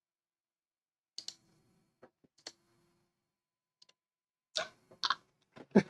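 A few short, sharp clicks after about a second of total silence, scattered at first, then closer together and louder near the end.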